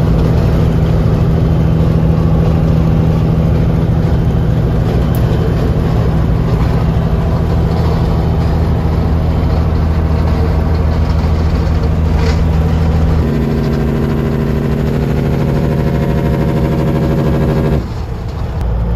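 Semi truck's diesel engine running steadily on the highway, heard from inside the cab. Its note changes about 13 seconds in, and the sound drops away about a second before the end.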